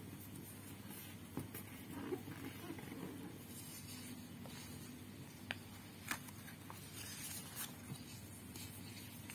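Paper being folded and creased by hand: soft rustling and sliding of fingers over the sheet, with a few sharp little crinkles and ticks as the folds are pressed down.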